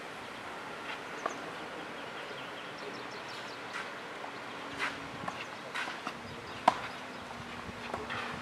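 Footsteps scuffing on a clay tennis court, with scattered light knocks and clicks, the sharpest about six and a half seconds in, over outdoor background noise.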